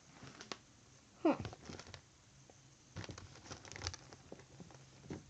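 Soft handling noises of squishy toys being picked up and put down: scattered light taps and rustles, with a short falling squeak about a second in.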